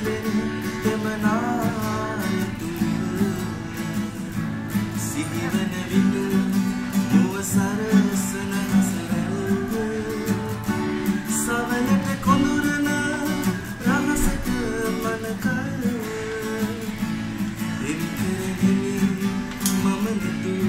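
A man singing in Sinhala, accompanying himself on a strummed nylon-string classical guitar.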